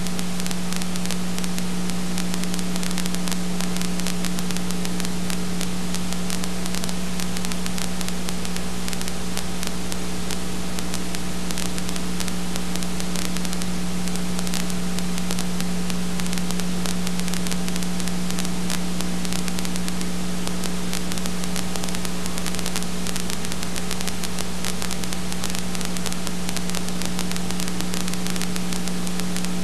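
Steady hiss with a constant electrical hum and no other sound: the noise floor of a silent home-movie transfer.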